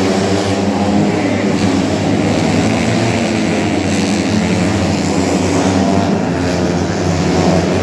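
Racing 125cc four-stroke underbone motorcycle engines running hard, a steady loud drone with some rise and fall in pitch.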